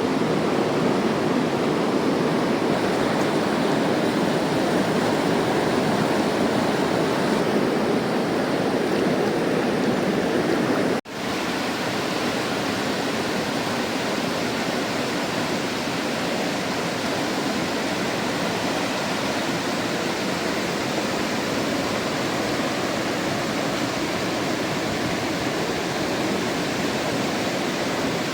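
Mountain river flowing, a steady even rush of water. It cuts out for an instant about eleven seconds in and carries on a little quieter.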